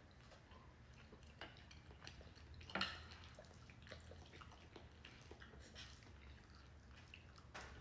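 Near silence: quiet room tone with a few faint, scattered small clicks, one a little louder about three seconds in.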